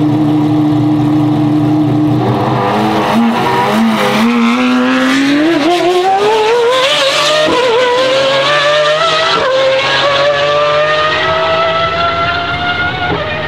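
Pagani Huayra R's naturally aspirated V12 accelerating hard. After about two seconds at steady revs the pitch climbs steeply, then keeps rising through quick upshifts around the middle and near the end. The sound grows slightly fainter as the car pulls away.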